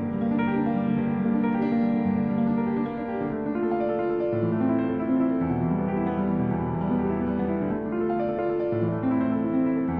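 Background music: sustained piano chords, changing about every second or so.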